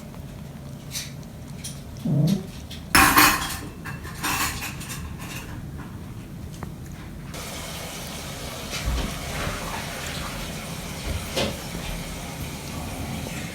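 A few sharp clattering knocks of hard objects, loudest about three seconds in, then water running steadily from about halfway.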